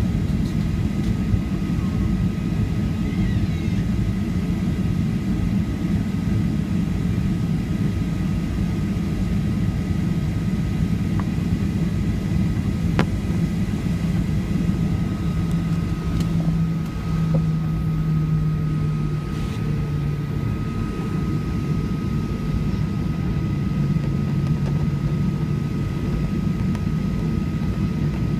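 Boeing 737-800 heard from inside the passenger cabin, its CFM56 jet engines running with a steady low rumble and a thin high whine over it.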